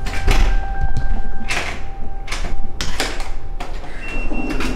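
Digital keypad door lock being worked and unlocked: short electronic beeps and the mechanical clacks of the lock and door.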